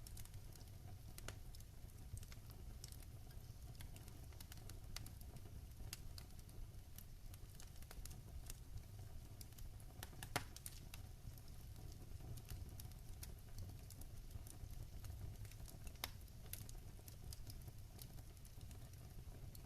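Wood fire in a fire pit crackling: many small, irregular pops and snaps, with two sharper pops about ten and sixteen seconds in, over a faint low rumble.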